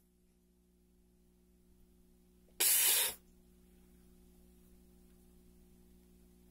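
A single short hiss of air, about half a second long, starting and stopping sharply about two and a half seconds in; otherwise near silence.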